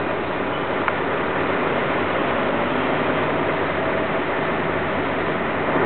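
DAF tanker lorry driving slowly past, a steady rush of diesel engine and road noise with a faint hum in it.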